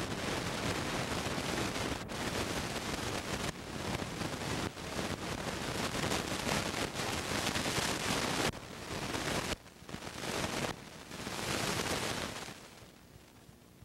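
Loud, even rushing hiss with several sudden drops in level, dying away near the end.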